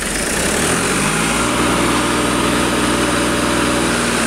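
Massey Ferguson tractor's diesel engine running steadily, with a fast even firing pulse.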